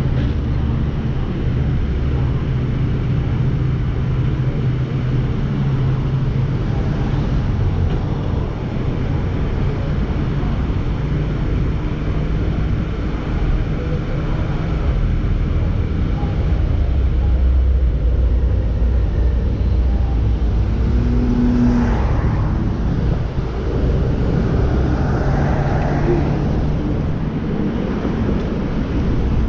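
Car driving through city streets: a steady low rumble of engine and road noise, with a few brief higher sounds in the second half.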